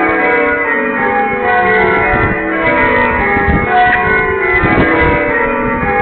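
Church bells ringing. Several bells of different pitch strike one after another and overlap without a break, in a continuous loud ring.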